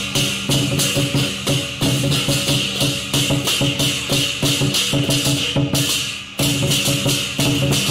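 Chinese lion dance percussion band playing fast: a big drum beaten in quick strokes under rapid, regular cymbal clashes, with a short break about six seconds in.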